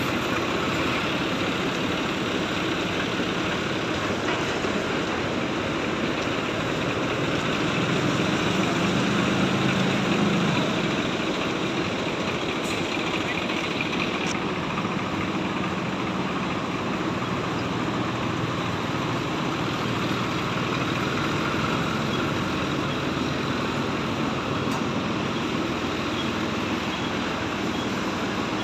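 John Deere tractor's diesel engine running steadily as it works a front loader, swelling louder for a couple of seconds about eight seconds in.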